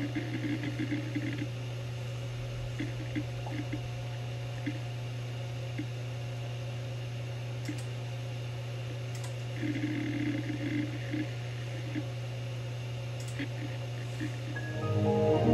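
Opened Seagate Barracuda ATA IV ST340016A hard drive running: a steady low spindle hum, with short rattles of head-seek clicks at the start and again about ten seconds in, and scattered single seek ticks in between.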